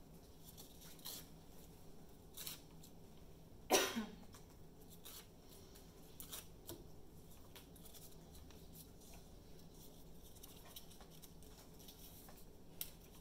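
Quiet classroom room tone with a faint steady hum and scattered soft clicks and taps. About four seconds in comes one short, louder sound that falls in pitch.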